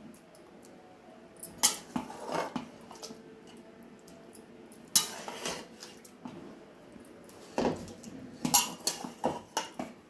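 Steel ladle scraping and clinking against a metal cooking pot while mutton curry is scooped out onto rice. Scattered single knocks and scrapes, with a quicker run of clinks near the end as the curry pot is tipped over the rice pot.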